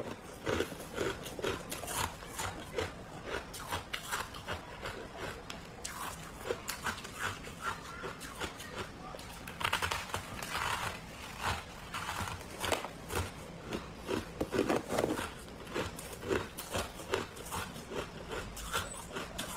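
Freezer frost being bitten and chewed: irregular runs of crisp, crackly crunches.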